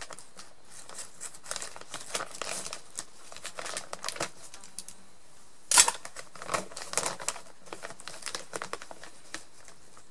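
Large plastic sack of peat crinkling and rustling irregularly as hands work at its open top and reach into it, with one sharp, louder crackle about six seconds in.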